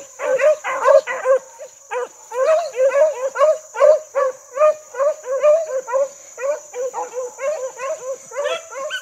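Beagle hounds baying while running a rabbit's trail: a fast, unbroken string of short yelping barks, about three a second, with a few overlapping near the end.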